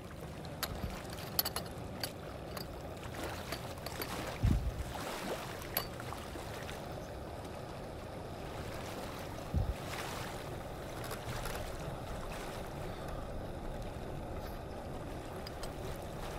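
Steady water noise with scattered light ticks, and two dull low thumps about four and a half and nine and a half seconds in.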